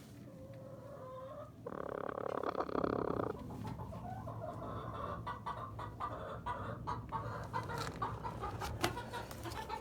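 Domestic hen making strange sounds: a soft note, then a loud drawn-out pulsing call starting about two seconds in and lasting over a second, followed by a long run of quick, short clucks and chatters.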